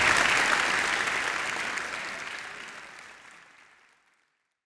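Audience applauding, fading out steadily until it is gone about four seconds in.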